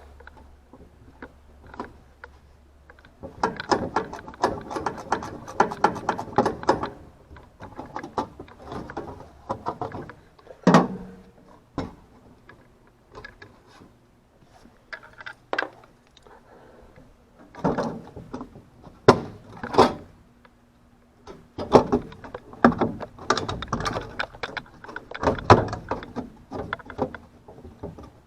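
Clicking, rattling and sharp knocks from tools and metal parts being handled: a dense run of rattling clicks a few seconds in, then scattered knocks and clanks. A low hum stops about three seconds in.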